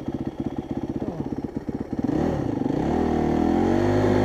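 Honda CRF dirt bike's single-cylinder four-stroke engine chugging at low revs in first gear on a climb, with rapid, even firing pulses. About two seconds in the throttle opens and the engine note rises and bends in pitch, getting louder and staying up to the end.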